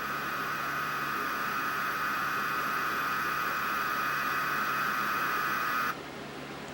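Steady hissing static from a TV's broadcast audio after an Emergency Alert System message, with a faint high tone in it. It cuts off sharply about six seconds in.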